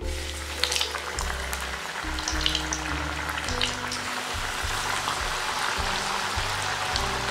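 Flour-coated chicken drumsticks deep-frying in hot oil in a pan: a dense sizzle that starts suddenly as the first piece is lowered in, with sharp crackles and pops as more chicken goes into the oil.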